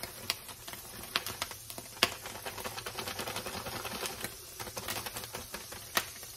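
Butter melting in hot vegetable oil in a pan on high heat, crackling and spitting with irregular sharp pops and clicks, two of them louder, about two seconds in and near the end.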